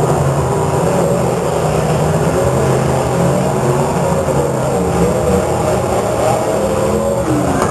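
Several demolition derby cars' engines running and revving together, a loud, continuous din with many engine pitches wavering up and down at once.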